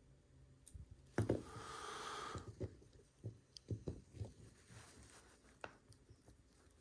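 Faint clicks and taps of a small screwdriver and a lock being handled, with a brief noisy rush about a second and a half in.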